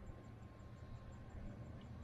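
Faint background noise: a low steady hum under a light hiss, with no distinct event.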